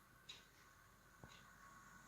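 Märklin 37806 model locomotive's electric motor running with sound switched off: a faint steady two-note whine, with a couple of light ticks about a second apart.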